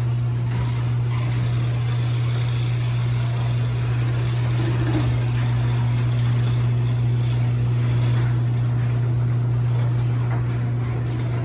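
Garage door in motion: an electric opener gives a steady, even hum while the door travels. The door's rollers and hinges have been treated with Blaster garage door lubricant.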